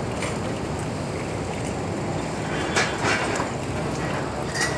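Water splashing in a small bucket as hands rinse out wet-sanding paper, with a few sharper splashes about midway and again near the end, over a steady low rumble of background noise.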